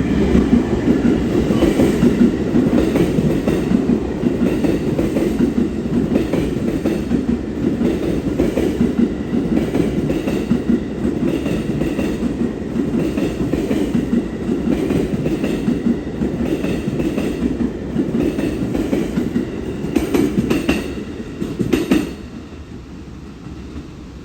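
A train running past a station platform: a steady rumble with repeated clacks of wheels over rail joints. The rumble and clacks stop abruptly about 22 seconds in.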